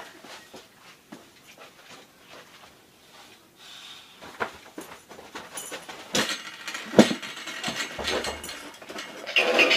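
Scattered knocks, clicks and rustling of a person moving about close to the microphone in a small room, with a sharp click about seven seconds in and louder rustling near the end.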